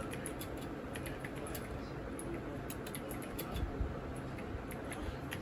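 Mechanical keyboard in a wooden case being typed on: a quick, irregular run of key clicks.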